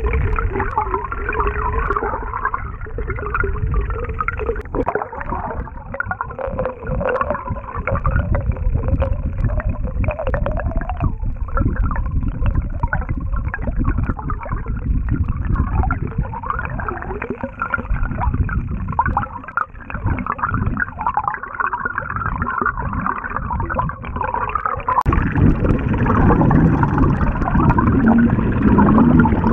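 Bladed jig (chatterbait) retrieved underwater, its vibrating blade giving a fast rattling and clicking with a wavering whine, heard through an underwater camera. About 25 s in the sound changes abruptly to a lower, fuller rattle.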